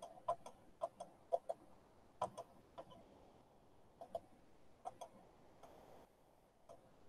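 Computer mouse button clicking: a string of short, sharp clicks, many in quick pairs, thickest in the first three seconds and sparser after.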